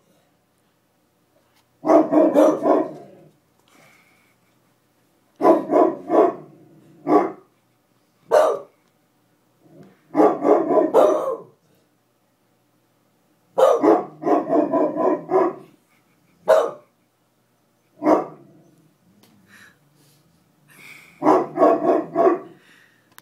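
A beagle–Queensland heeler mix and a Great Pyrenees puppy barking in repeated bouts of quick barks with short pauses between: an alarm at someone at the door.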